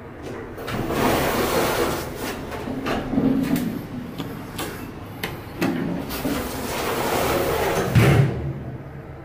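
Toshiba elevator car doors sliding, heard as two spells of rumbling; the second ends in a thud about eight seconds in as the doors shut.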